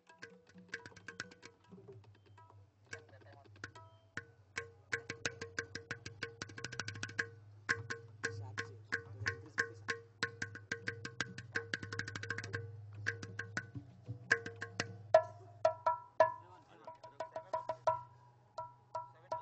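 Tabla played in a fast, dense rhythmic passage of sharp, pitched strokes over a low steady drone. About fifteen seconds in, the strokes move to a higher pitch.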